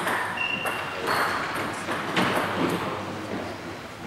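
A few sharp, echoing clicks of table tennis balls striking bats and tables.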